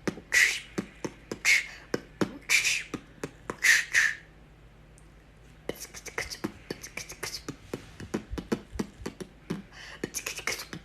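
Beatboxing: four loud hissing 'tss' bursts about a second apart, then after a short pause a quick run of clicks with softer hisses.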